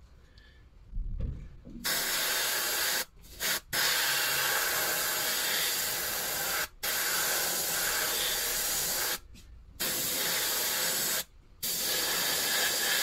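Airbrush spraying aluminium primer: a steady hiss that starts about two seconds in and runs in long stretches, cut off briefly four times as the trigger is released.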